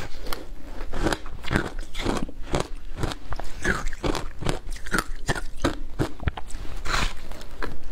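Shaved ice coated with passion fruit pulp being bitten and chewed close to the microphone: a steady run of crisp, icy crunches, roughly two a second.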